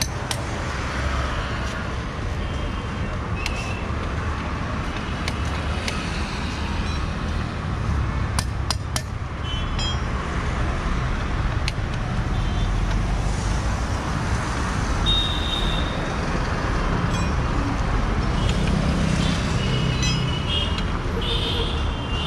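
Steady road traffic with vehicle engines running and short horn toots near the end, along with a few sharp metallic clicks about a third of the way in.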